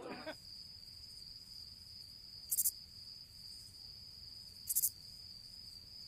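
Crickets chirping: a steady high trill with two louder chirps about two seconds apart. It is the comic 'crickets' sound effect for an awkward silence.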